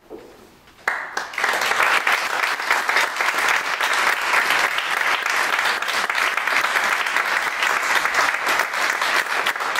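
Audience applauding, breaking out suddenly about a second in and keeping up steadily.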